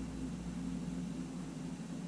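Steady background hum with an even hiss, from a machine running.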